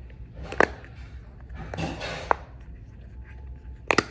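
Silicone bubbles of a simple dimple fidget toy being pushed through, giving a few sharp pops: one about half a second in, one a little after two seconds, and two close together near the end.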